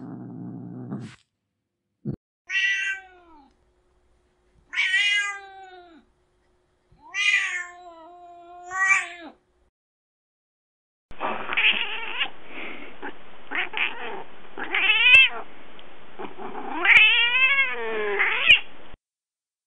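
Recorded domestic cat meows from a cat-sound app, played one clip after another: four separate meows in the first half, then, after a short gap, a duller recording with several more meows over background noise.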